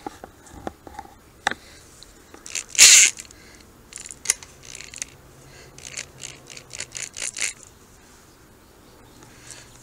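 A cordless drill briefly spinning up to twist tie wire, a short burst about three seconds in, followed by a series of light metallic clicks and scrapes as the wire tightens around the steel kennel post.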